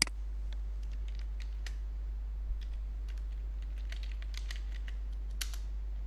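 Typing on a computer keyboard: an irregular run of light key clicks, with one sharper click at the very start, over a steady low hum.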